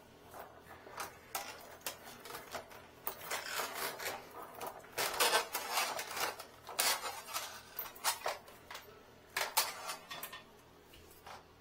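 Gloved hands sorting coiled steel cables and a corrugated plastic hose in a metal equipment case: irregular clicks, clinks and rustling, busiest in the middle and again near the end.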